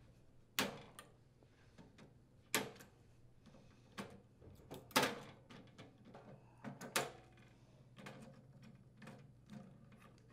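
Faint, scattered clicks and small knocks of needle-nose pliers gripping and pulling the blower motor wires' push-on terminals off a furnace control board, about a dozen in all with the sharpest about half a second, two and a half and five seconds in.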